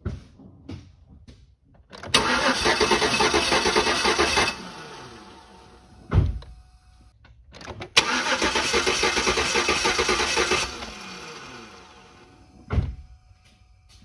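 GMC Envoy Denali's 5.3-litre V8 turned over on its starter twice, each time for about two and a half seconds, starting suddenly and then winding down. A short dull thump follows each. The engine is being cranked to watch a collapsed lifter's pushrod move on the cam.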